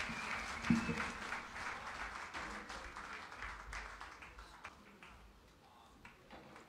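Concert audience applauding, the clapping thinning out and dying away over about five seconds. A short low thump about a second in.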